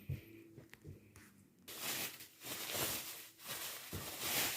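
Handling of kick-scooter parts and their plastic packaging: a few light clicks, then continuous rustling and scraping from about a second and a half in.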